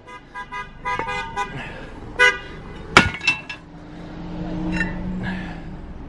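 Car horns honking in many short toots of different pitches from a parade of cars celebrating a graduation, with a passing car's engine swelling about four seconds in and a sharp click near the middle.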